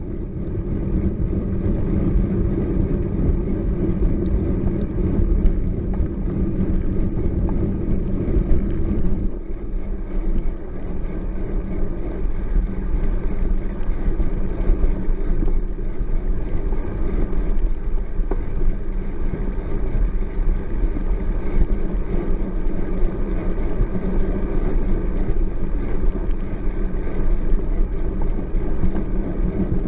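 Bicycle rolling along a trail, heard through a handlebar-mounted camera: steady tyre rumble and vibration noise with wind on the microphone. About nine seconds in, the higher crunching drops away as the tyres pass from gravel onto a smooth concrete bridge deck.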